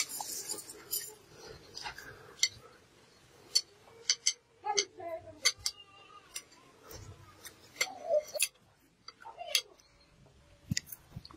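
Metal spoons clinking and scraping against glass bowls during a meal: scattered sharp clinks at irregular intervals.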